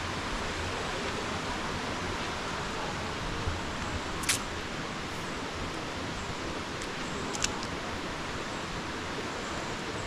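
Steady rush of waterfall and stream water, with two short clicks about four and seven seconds in.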